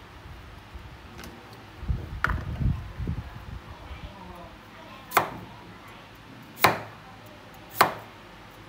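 Knife chopping carrot on a cutting board: a few low knocks about two seconds in, then three sharp chops a little over a second apart.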